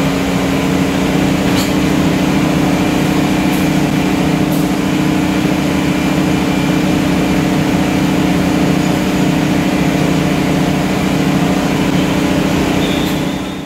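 Diesel-electric locomotive's engine idling close by: a loud, steady low drone, with a few faint light clicks over it.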